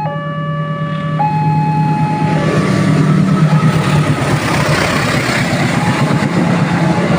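Railway level-crossing warning siren alternating between two tones, each held about a second. From about two seconds in, the rumble of an approaching train swells and all but drowns the siren out.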